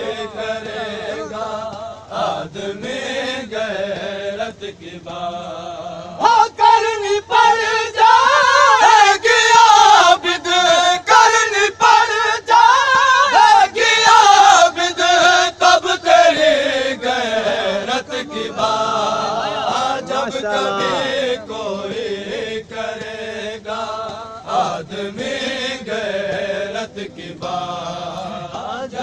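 A male voice chanting a noha, an Urdu mourning lament, in long sung phrases. It is loudest and highest about six to eighteen seconds in.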